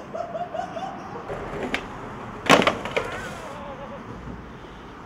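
A person's drawn-out, wavering call in the first second. Then a sharp clattering knock about two and a half seconds in, the loudest sound, with a lighter click before it and another knock just after.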